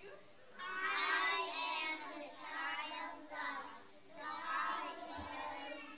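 Children singing, in phrases with brief pauses between them.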